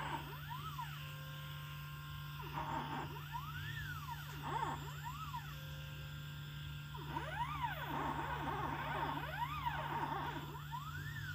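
Stepper motors of a homemade CNC pen plotter whining as the pen head draws PCB traces. The pitch rises and falls in quick repeated arcs as each move speeds up and slows down, over a steady low hum.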